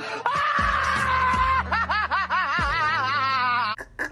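Edited-in meme sound clip: a high-pitched, drawn-out voice that slides down in pitch, then a warbling voice wavering rapidly up and down, over music with a steady low bass and a few thumps. It cuts off abruptly near the end.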